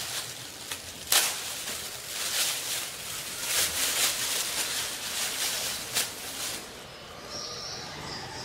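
Thin clear plastic bag crinkling and rustling as a plastic lid is pulled out of it, with sharper crackles about a second in and again around six seconds; the rustling dies down near the end.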